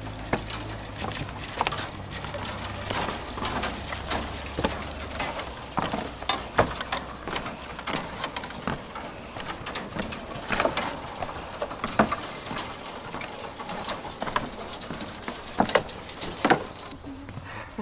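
Footsteps on the deck of a suspension bridge: irregular knocks and clatter as people walk across.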